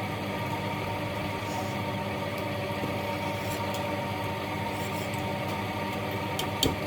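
Steady low machine hum made of several held tones, with two or three sharp clicks near the end.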